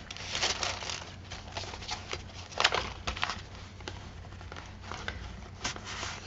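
Paper rustling in short bursts as the pages and tucked-in paper pieces of a handmade journal are handled and turned.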